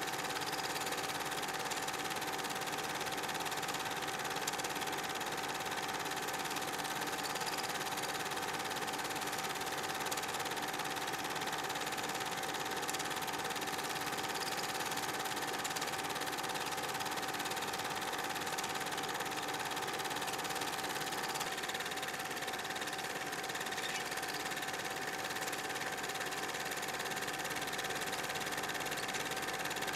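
8mm film projector running, a steady mechanical whirring hum from its motor and film mechanism; the tone shifts slightly about twenty seconds in.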